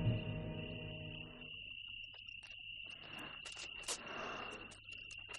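Brass music dies away in the first second and a half, leaving crickets trilling steadily as night ambience. A few sharp clicks and a brief rustle come about three to four seconds in.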